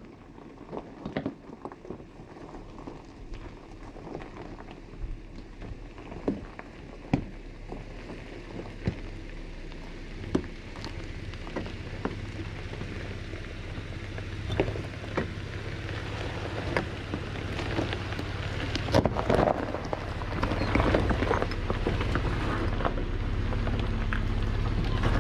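Chevrolet Colorado pickup crawling slowly over rocks. Its tyres crunch and crack on stone and gravel over the low, steady run of the engine, and all of it grows louder as the truck comes close, with the sharpest cracks near the end.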